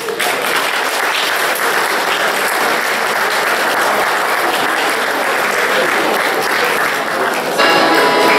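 Audience applauding, a dense even clapping. Near the end an accordion starts playing.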